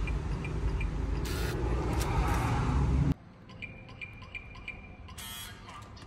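Digital keypad door lock beeping with each key press, over a loud low rumble; after an abrupt cut, another quick run of about five keypad beeps and then a brief whir near the end.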